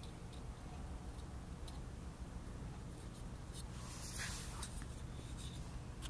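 Faint handling noise from fingers turning a small metal multi-tool: light rustles and small ticks, with a brief soft hiss about four seconds in, over a low steady hum.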